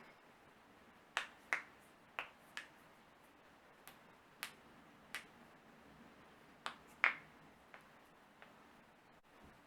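A person's joints cracking: about ten sharp pops at irregular intervals, the loudest a little past halfway.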